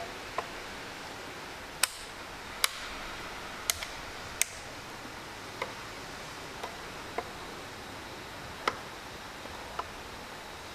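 Radio-control transmitter's switches and sticks being worked to their end stops, giving about a dozen sharp, irregularly spaced clicks over faint steady hiss, as the RC channels are calibrated.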